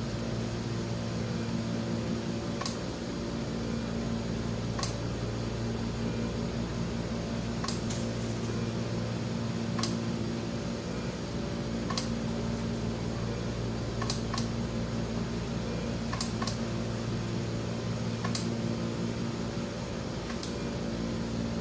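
The NIBP module of a Philips Efficia CM120 patient monitor working through a blood-pressure measurement. A sharp click comes about every two seconds over a steady hum: the solenoid valve working as the cuff pressure is let down.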